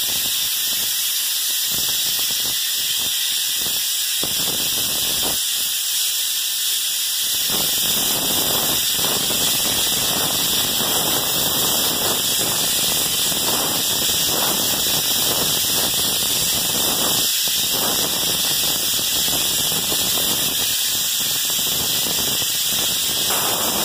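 Binks 7E2 air-atomizing texture spray gun hissing steadily as it sprays orange peel drywall texture. The hiss gets fuller about seven seconds in.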